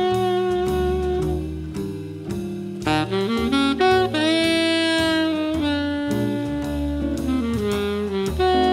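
Jazz quartet: saxophone playing the lead melody over bass and drums, with a quick run of notes about three seconds in and a long held note just after.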